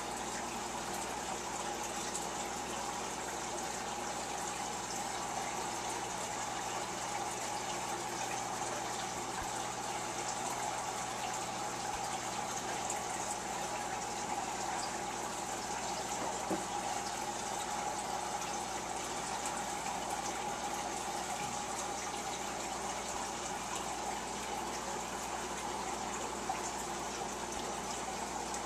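Water circulating steadily in a turtle and catfish tank, a continuous splashing trickle like a pump or filter return, with a faint steady hum beneath.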